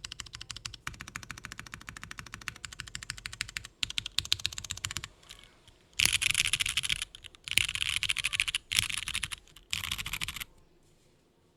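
Mechanical keyboard with lubed, filmed Cherry MX Brown switches on an aluminium plate in a polycarbonate case, with GMK keycaps, being typed on: a steady run of quick keystrokes, a brief pause, then four louder stretches of very fast keystrokes. The typing stops about a second before the end.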